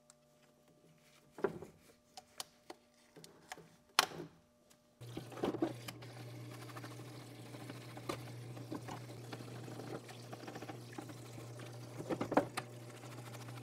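Metal clinks and knocks as a part is handled in a parts-washer tub, then about five seconds in the parts washer's pump switches on and runs with a steady hum while solvent pours over the part. A stiff brush scrubs the part in short bursts, loudest near the end.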